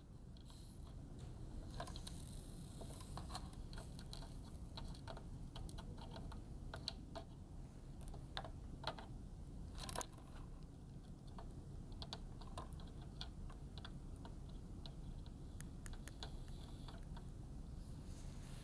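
Faint, scattered small clicks and taps of soldering tools against a TV power board while a replacement fuse is soldered on, one sharper click about halfway through, over a steady low background hum.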